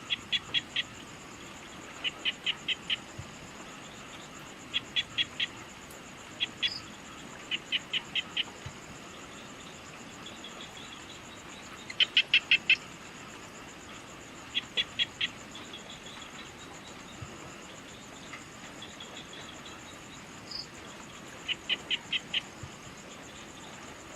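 Evening outdoor ambience: a steady, high, fast insect trill, with short clusters of three to five quick, loud chirps repeating every two or three seconds. The loudest cluster comes about halfway through.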